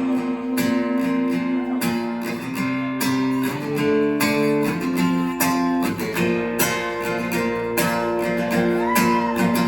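Acoustic guitar strummed in an instrumental passage of a live song, with regular strokes and the chords changing every second or so.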